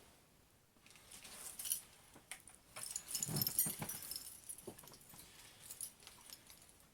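Handling noise: scattered light clicks and rattling, busiest a few seconds in.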